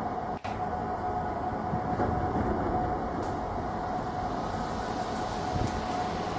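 Steady vehicle running noise with a constant whine. The sound drops out for an instant about half a second in.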